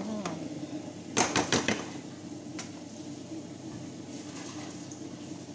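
A metal utensil knocking and clinking against a stainless steel cooking pot: a quick run of four or five sharp knocks about a second in, and one more a second later, over a steady low hum.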